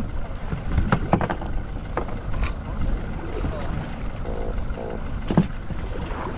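Steady low rumble of a fishing boat at sea, engine and wind on the microphone, broken by a few short sharp knocks, the loudest about five seconds in.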